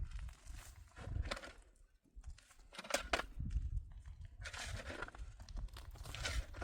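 Snow crunching in about four separate strokes, over a low rumble.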